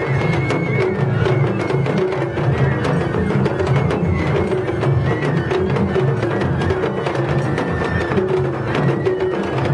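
Japanese festival hayashi music played live from the dashi floats: taiko drums beating steadily with a high bamboo flute melody over them.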